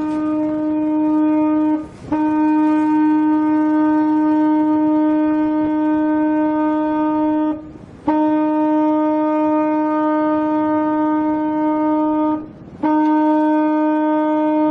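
Ship's horn sounding one steady note in long blasts of several seconds each. The blasts are broken by short gaps about two, eight and twelve seconds in.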